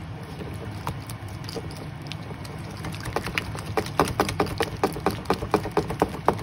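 Small wire whisk beating a thick cream cheese and mayonnaise sauce in a ceramic bowl: soft scraping at first, then from about halfway in quick strokes with the wires clicking against the bowl about four to five times a second.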